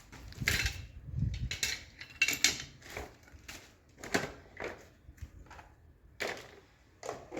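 Metal hand tools clinking and knocking: a dozen or so irregular, sharp strikes with uneven gaps, typical of paintless dent repair tools being used and handled on a car body panel.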